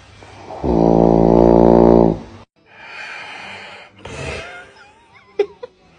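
One long, loud, buzzing snore about a second in, lasting roughly a second and a half and cut off abruptly. It is followed by quieter hiss and a couple of sharp clicks near the end.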